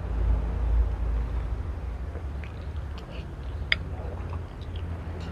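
A person eating fried instant noodles with chopsticks: a few faint clicks and smacks of slurping and chewing, mostly around the middle, over a steady low rumble.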